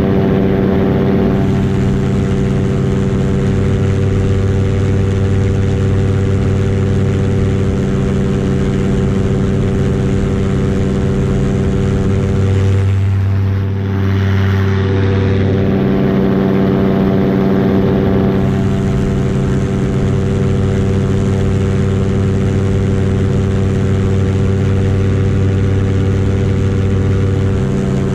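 Paramotor engine and propeller running steadily at cruise power in flight, an even engine note with a brief change in tone about halfway through.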